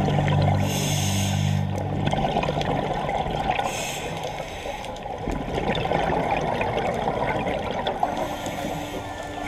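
Scuba breathing heard underwater: a diver's regulator hissing and the rush of exhaled bubbles, in two short bursts about a second in and again near four seconds, over a steady murky water noise.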